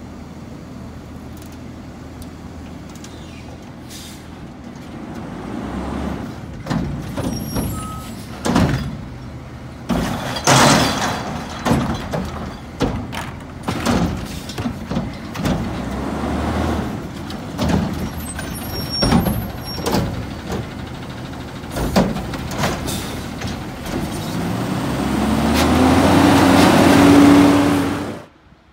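Front-loading garbage truck with a Curotto-Can carry can: diesel engine running while the arm works the can, with repeated metal bangs and clanks. Near the end the engine revs up, rising in pitch and growing louder, then cuts off suddenly.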